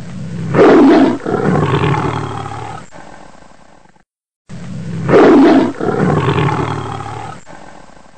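Big cat roaring: the same roar heard twice with a brief silence between. Each roar opens with a loud call, then a longer call that fades out over a few seconds.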